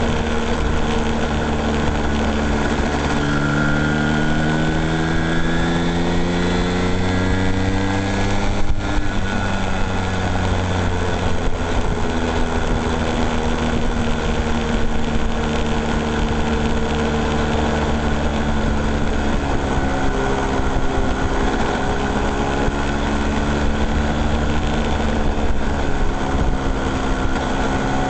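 An engine running steadily. Its pitch climbs slowly for a few seconds, and a short click about nine seconds in is followed by the pitch dropping back to a steady run.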